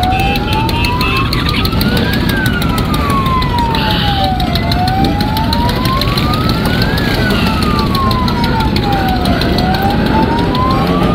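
Emergency-vehicle siren wailing in a slow, even rise and fall, each climb and each drop taking about two and a half seconds, over steady low road noise.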